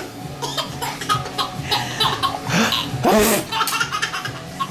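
Baby boy laughing heartily in short repeated bursts at a mock sneeze, with a louder vocal outburst about three seconds in.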